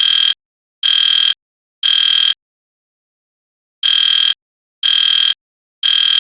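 EST Genesis fire alarm horn sounding the temporal-three (code-3) evacuation signal: three high-pitched half-second blasts a second apart, a pause of about a second and a half, then three more.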